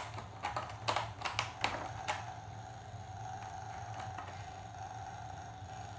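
A Bengal kitten's claws scratching and picking at a corrugated cardboard scratch pad: a quick run of scratchy clicks over the first two seconds, then only a steady faint hum.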